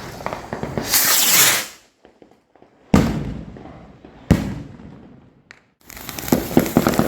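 Rocket firework: a loud rushing hiss about a second in, then two sharp bangs about one and a half seconds apart, each fading away, and crackling near the end.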